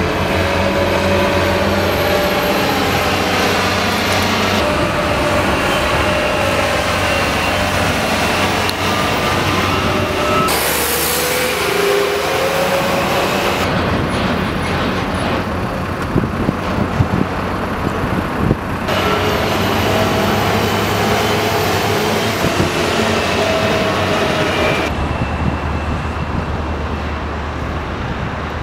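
Steady engine and heavy vehicle noise with a low hum and occasional gliding engine tones. The sound changes abruptly several times.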